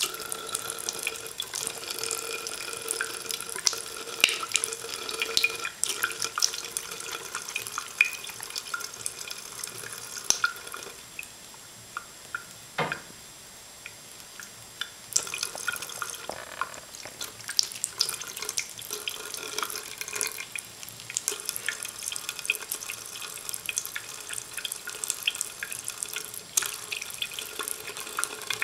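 Thin stream of water from a faucet trickling into a sink, with many irregular small splashes and drips as a cat laps at the stream. It goes quieter for a few seconds around the middle.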